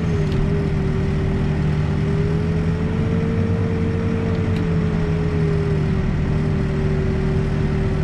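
Backhoe's diesel engine running steadily, heard from inside the cab, with a thin whine over it that rises slightly in pitch about three seconds in and drops back near six seconds as the boom is moved.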